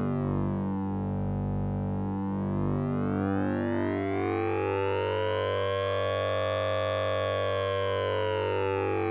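Synthesized sync-and-ring-modulation sound effect from the Orange Vocoder plugin: a steady low drone under a dense cluster of metallic, siren-like tones that sweep slowly down and then back up.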